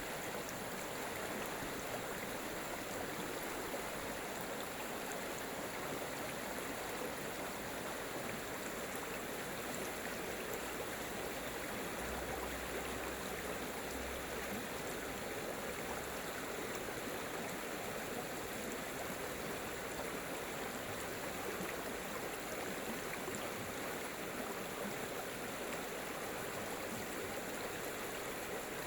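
Running water: a steady, even rush that holds unchanged throughout.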